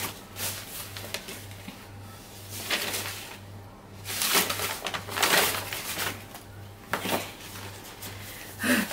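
Brown kraft packing paper crinkling and tearing in several short bursts as a wrapped parcel is unwrapped, over a faint low hum that pulses steadily.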